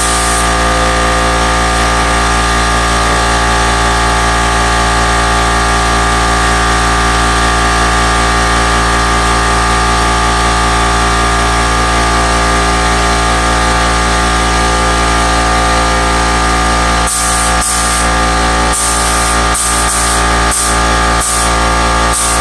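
Background electronic music with a dense, steady layered sound; sharp beat hits come in about three-quarters of the way through.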